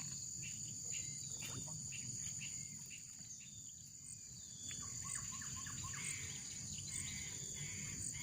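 A steady, high-pitched chorus of crickets or other insects, with short bird chirps scattered through it.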